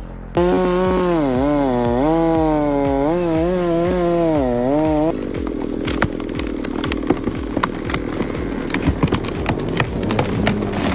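Chainsaw running, its pitch rising and falling repeatedly as it is revved and loaded for about five seconds. Then it turns to a rougher, noisier sound with many sharp crackles.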